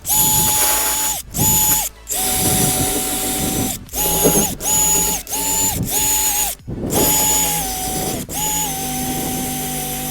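Drill-driven wire wheel whining in repeated short bursts as the trigger is pulled and released. The pitch dips slightly when the wheel bears on the metal, scrubbing rust off the truck's door panel.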